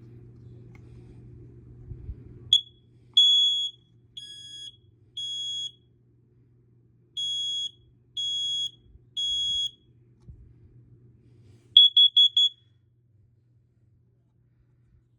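SC9120B smoke and carbon monoxide alarm sounding its piezo horn on test: a chirp and a few high-pitched beeps, then three beeps in a row, the smoke-alarm pattern, then four quick beeps, the carbon monoxide pattern.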